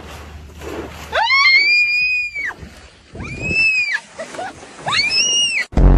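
Three long, high-pitched shrieks, each rising and then falling in pitch, the first the longest. Near the end a loud, low buzzing tone cuts in.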